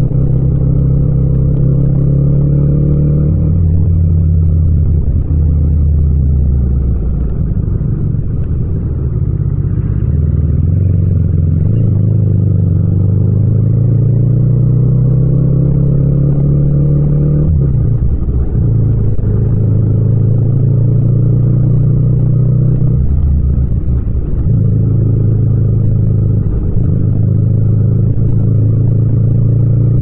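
Yamaha MT-07's parallel-twin engine running under way at city speed, heard from the rider's seat. Its pitch climbs under throttle and drops sharply about three seconds in, then climbs again for several seconds before dropping around seventeen seconds in. There is an upshift from third to fourth gear in the second half.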